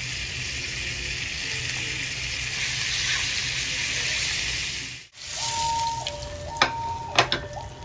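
Wheat-flour-coated fish pieces shallow-frying in oil on a flat iron tawa: a steady sizzle. The sizzle cuts off about five seconds in. A two-note electronic tone then alternates high and low, with a couple of sharp clicks.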